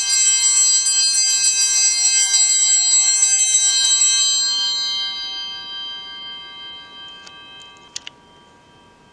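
Altar bells shaken in rapid strokes for about four seconds, then left ringing and fading away over the next few seconds. This is the ringing at the elevation of the chalice after the consecration. Two small clicks follow near the end.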